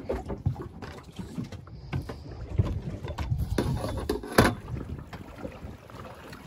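Wind buffeting the microphone on a small boat, an uneven low rumble, with scattered knocks and clicks from handling on deck; the sharpest knock comes a little over four seconds in.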